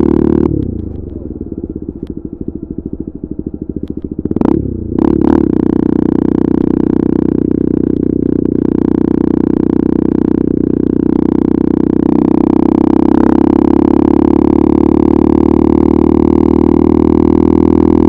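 KTM RC 390's single-cylinder engine through an Akrapovic exhaust. About half a second in the throttle closes and the revs fall away with a pulsing off-throttle rumble, and two sharp cracks come around four and five seconds in. After that the engine pulls steadily at high revs, building a little in the later part.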